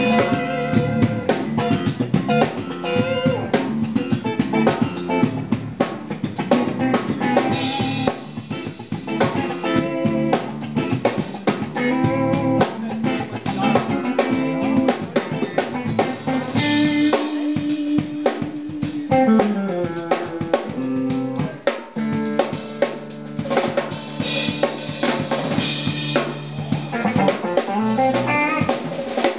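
A band playing an instrumental groove live: a drum kit keeping a busy beat with snare and bass drum, under an electric bass line, with keyboard tones on top.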